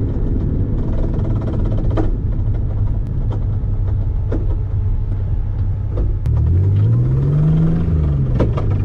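Mazda MX-3's engine running with a steady low drone as the car is driven. About six seconds in, the revs climb and then fall back over about two seconds. A few faint clicks are scattered through.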